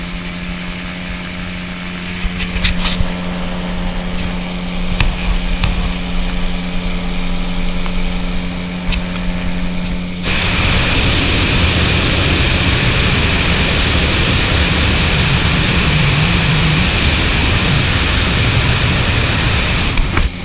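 Gyroplane engine running steadily at low power as the machine rolls along the ground after landing, with a few knocks and rattles. About halfway through the sound switches abruptly to a louder rushing of wind and engine.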